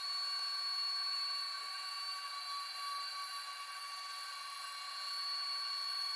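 Small high-speed CNC spindle running with a steady high-pitched whine as its fine pointed bit cuts into a copper-clad PCB blank.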